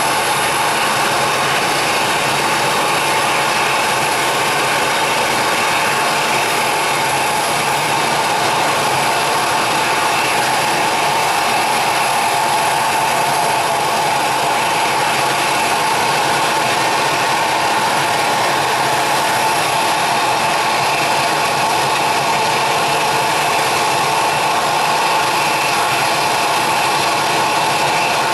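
Boeing 777-300ER's twin GE90-115B turbofan engines at takeoff power through the takeoff roll and lift-off: a loud, steady jet noise with several held tones in it.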